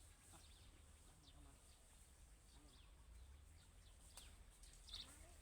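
Near silence outdoors, with faint, scattered short bird chirps over a low rumble.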